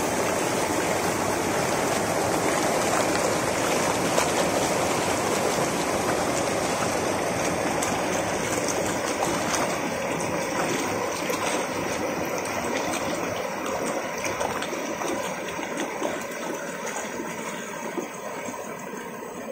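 Whitewater rapids in a shallow stream, water rushing and splashing over and around rocks in a steady roar of noise. It grows gradually quieter over the second half.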